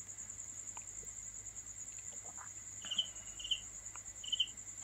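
Crickets trilling in a steady, high, fast-pulsing chirr, with three short chirps from another caller in the second half.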